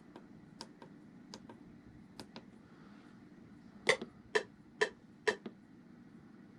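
Plastic button clicks from the music-production gear: scattered light clicks, then four louder ones about half a second apart, over a faint steady hum.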